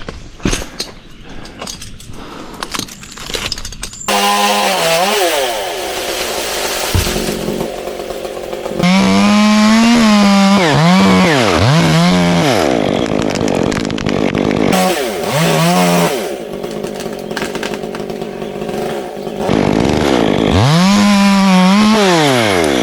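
Chainsaw cutting limbs from a birch tree: it starts up about four seconds in, then revs repeatedly, its pitch sagging as the chain bites into the wood and rising again as it comes free. Before it starts there are a few scattered knocks.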